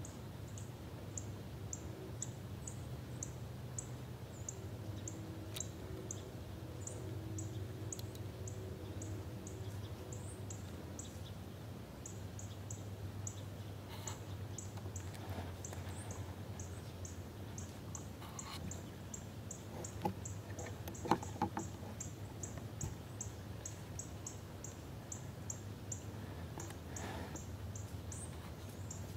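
Quiet pine woods: a faint, high, thin chirp repeated about twice a second, over a low steady hum. In the second half come scattered rustles and a few sharp snaps in the dry leaf litter, the loudest a little past two-thirds of the way through.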